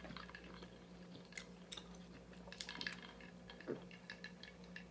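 Soft sipping through a straw and swallowing: a string of small wet mouth clicks, with one louder sound about three and a half seconds in, over a steady low hum.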